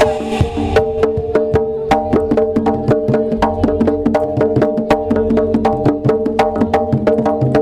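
Live Javanese bantengan accompaniment: a percussion ensemble playing fast, even strokes, about five a second, over ringing pitched gamelan tones that change note step by step.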